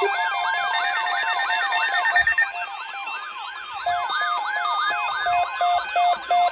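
Electronic siren yelping rapidly up and down, about three sweeps a second, layered with steady electronic alarm tones; from about four seconds in a beeping alarm pulses about twice a second under the siren.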